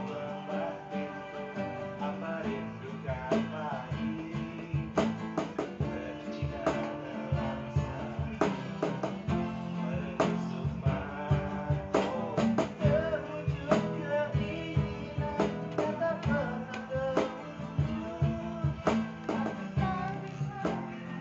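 Acoustic guitar strummed and picked in an informal jam, with a cajon slapped by hand in a steady rhythm coming in a few seconds in.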